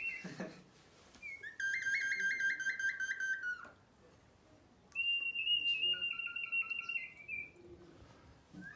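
A high whistle blown in long held notes, each broken by a fast warbling trill of about eight pulses a second, with short pauses between notes.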